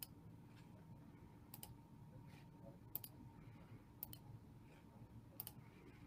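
Near silence with faint computer mouse clicks: five quick double clicks, spaced a little over a second apart.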